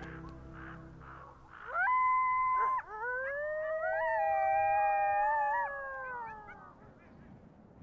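Coyotes howling: one short howl about two seconds in, then a longer howl of two overlapping, wavering voices that slides down and fades out near the end.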